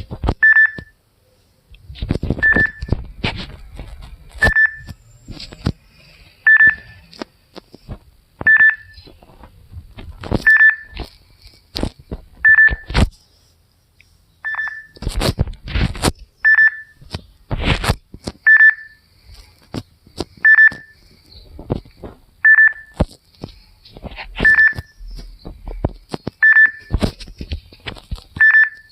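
Ringtone: a short, high electronic beep repeating about every two seconds, with bunches of sharp clicks and knocks between the beeps.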